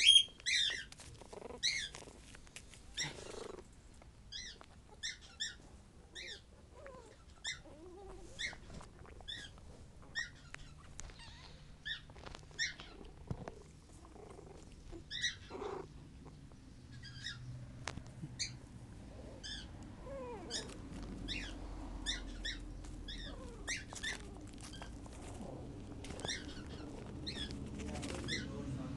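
Three-week-old puppies whimpering and squeaking: short, high-pitched squeals, one or two a second. A low rumble builds up under them in the second half.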